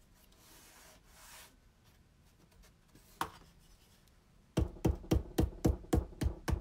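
Faint rubbing of a hand along a book's spine, then a backing hammer tapping the spine held in a wooden press: one knock, then a quick run of about ten taps, about five a second, near the end. The taps are shaping the round of the spine.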